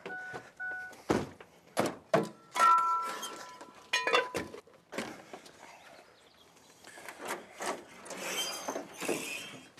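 A work truck's door-open warning chime beeps rapidly and stops about a second in, followed by the door shutting. Then come several loud clunks and knocks, some with a brief metallic ring, as gear is handled at the truck, and rustling near the end.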